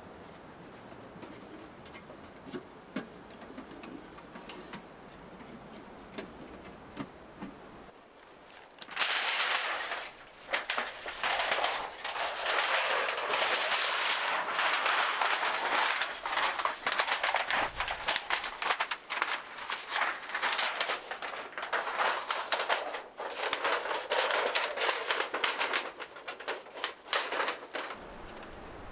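A pigeon cooing faintly, then from about nine seconds in a long stretch of loud, close rustling and crackling of dry heather and undergrowth being pushed through and handled.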